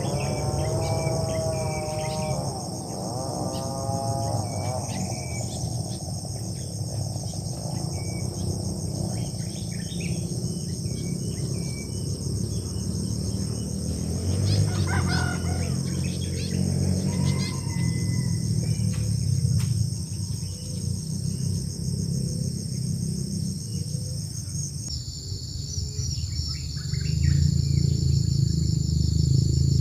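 Insects drone steadily and high-pitched throughout, the drone shifting slightly lower near the end. A rooster crows in the first few seconds, with scattered short bird chirps over a low rumble.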